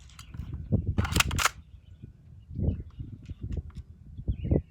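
PSM45 BB pistol being handled and worked between shots: a quick cluster of sharp clicks about a second in, with dull low handling knocks around it.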